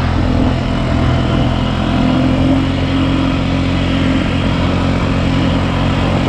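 ATV engine running at a steady, even speed.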